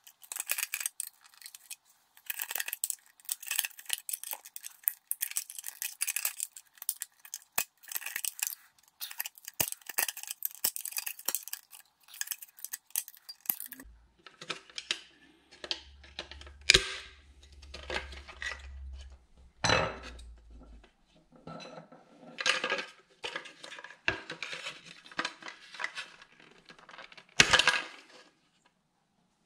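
A thin metal pick scraping and clicking against the plastic housing of an auto-dimming rear-view mirror as the ball-socket is pried free of its bracket. A dense run of small scratchy clicks gives way, about halfway through, to looser handling rattles and a few sharp plastic snaps, the loudest near the end.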